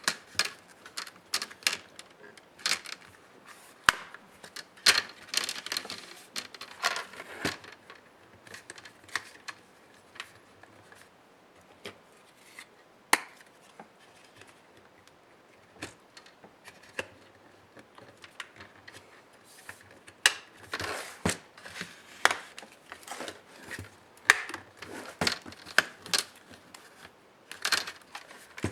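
Irregular clicks, taps and short scrapes of laptop parts and small tools being handled during disassembly, busy at first, sparse through the middle and busy again near the end.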